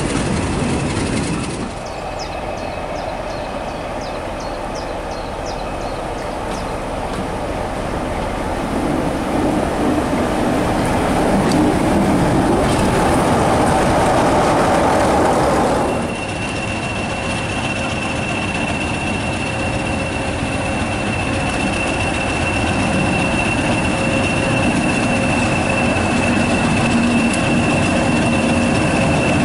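Diesel-hauled train running at speed, heard from an open carriage window as it runs alongside another train, with wheel and rail noise building. It cuts to a British Rail Class 20 diesel locomotive running slowly, a steady high whine over its engine.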